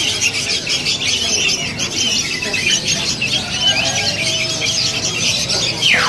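Many caged songbirds calling at once: a dense, high-pitched chatter of short chirps, with one downward-sliding whistled call near the end.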